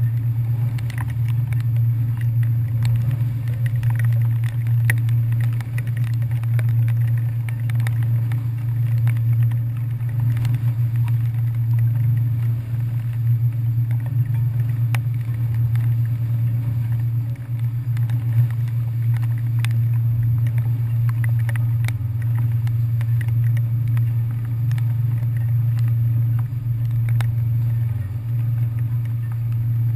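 Passenger ferry's engines running underway, a steady low drone.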